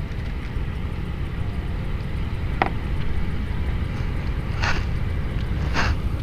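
Low, uneven rumble of wind on the microphone, with a sharp click a little over halfway through and two short rustling scrapes near the end as hands handle a small fish and the hook.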